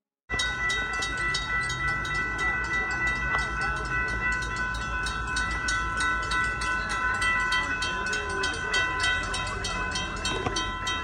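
Railroad grade-crossing warning bell ringing with rapid, evenly spaced strikes and a steady ring, over a low rumble. The bell is sounding while the crossing lights flash and the gates are down.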